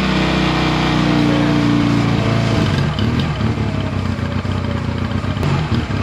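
A Honda Rebel 250's air-cooled parallel-twin engine, just started on choke, running at a steady fast idle on its freshly rebuilt carburetor. The note turns slightly uneven about halfway through.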